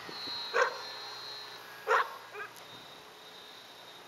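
A dog barking twice, about two seconds apart, the second bark the louder, followed by a couple of softer yips. Under it a faint, thin high whine from the RC plane's electric motor as the plane flies away.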